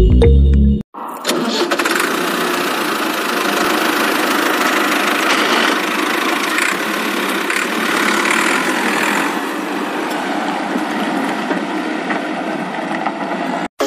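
Battery-powered toy tractor's small electric motor and gears running steadily as it drives, towing a loaded trailer. A moment of music comes first, and the motor sound cuts off just before the end.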